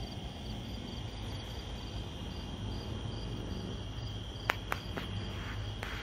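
Crickets chirping in the night air: a steady high trill with a pulsed chirp repeating about three times a second. Four sharp clicks come between about four and a half and six seconds in.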